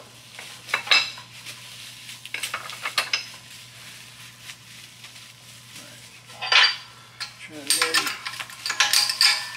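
Steel parts clinking and scraping as a cam plate, a bearing and a bearing-installer tool are set in place on the press bed. About eight seconds in, a quick run of clicks begins, about four a second, as the hydraulic bottle-jack shop press is worked to push an inner cam bearing into the cam plate.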